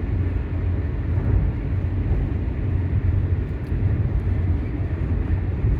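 Steady low rumble of a car driving at speed on an expressway: road and engine noise heard from inside the cabin.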